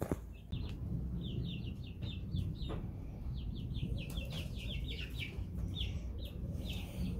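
Birds chirping in quick runs of short, high notes, over a low, steady rumble.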